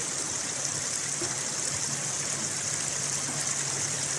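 Shallow river water running steadily over stones, an even rushing noise with no breaks.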